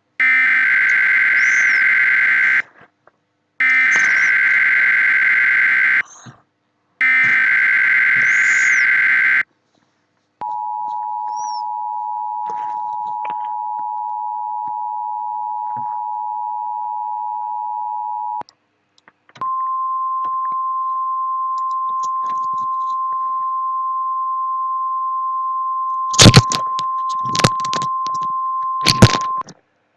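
Emergency Alert System encoder sending a thunderstorm watch. First come three bursts of the buzzing SAME header data tones, each about two and a half seconds long. Then the steady two-tone EAS attention signal sounds for about eight seconds, followed by a single steady 1050 Hz attention tone for about ten seconds, with two loud knocks near the end.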